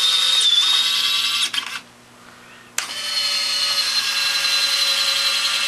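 Small DC gear-motor and jack-screw actuator of a converted Robart 630 retract running with a steady whine. It stops about a second and a half in, and a second later it starts again as the gear leg is driven back the other way.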